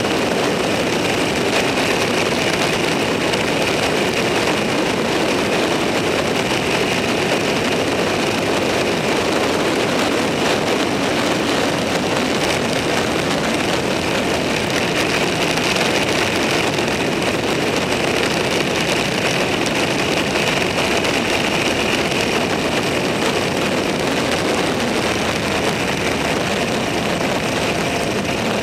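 Vehicle cruising at a steady speed: an even roar of engine, road and wind noise that holds without revving up or down.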